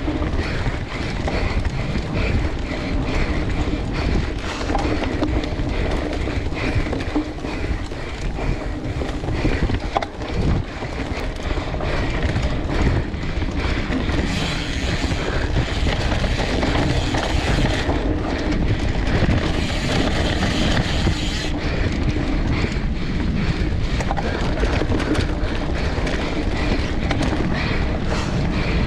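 Mountain bike ridden fast down a dirt singletrack: a constant rattle and clatter of the bike over the rough trail, with wind rumbling on the camera microphone. About halfway through there are two stretches of brighter hiss.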